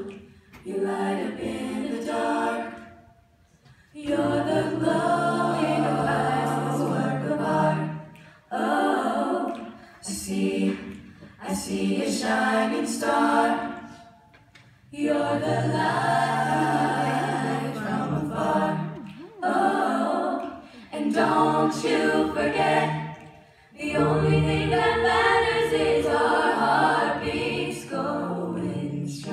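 A middle school a cappella choir singing, in phrases broken by short pauses, with a low part sung beneath the upper voices.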